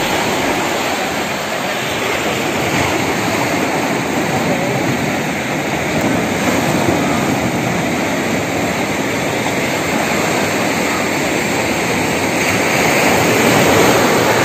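Steady loud rush of breaking surf and wind, growing a little louder near the end.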